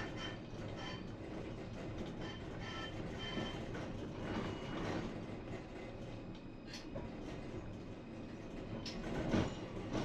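Tram running on rails: a steady low rumble with faint high squealing tones through the first half, then a few sharp clicks from the wheels on the track, the loudest about nine seconds in.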